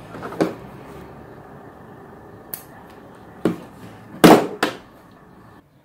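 A few short knocks and clicks of things being handled and set down, with the loudest pair about four seconds in, over a low steady room hiss.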